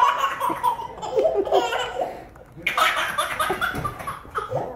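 A toddler laughing, in two long bursts with a short lull between them.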